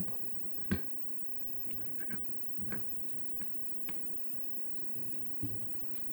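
Paper and card parts being handled and fitted together by hand: scattered light taps, clicks and rustles, with one sharper knock about a second in.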